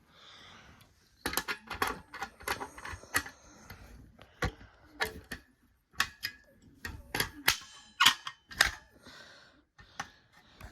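A fire alarm pull station being reset with a hex wrench: a run of sharp, irregular clicks and clacks, starting about a second in, as the key is fitted and turned and the cover and handle are worked.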